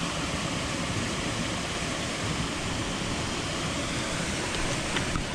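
Steady rush of a small stream's running water and the cascade upstream.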